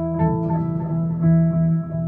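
Instrumental background music: a held low note with plucked notes changing above it.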